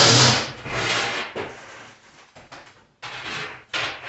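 A loud noise with a low hum fades out about half a second in. It is followed by several short scraping strokes of tiling work at the floor.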